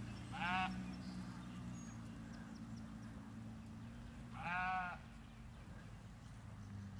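A Katahdin lamb bleating twice, two short calls about four seconds apart, the second slightly longer.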